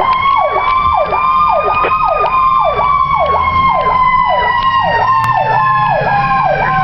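Ambulance electronic sirens (Federal PowerCall and EQ2B) heard from inside the cab. A fast yelp sweeps down about twice a second, and over it a second, Q-siren-style tone climbs briefly and then slowly winds down. A low engine rumble sits underneath, and a sharp click comes about five seconds in.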